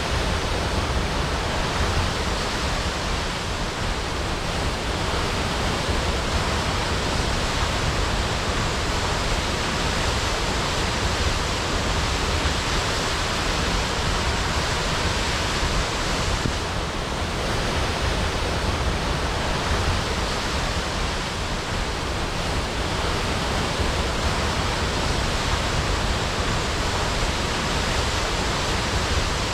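Waterfall crashing: a steady, dense rush of falling water.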